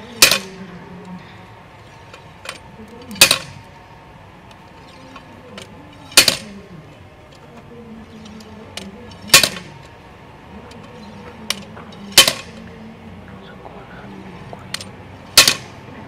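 Dynamic cone penetrometer's 8 kg steel hammer dropped onto the anvil six times, about every three seconds: sharp metal clanks with a brief ring, driving the cone and rod into the road soil. Fainter clicks fall between the blows.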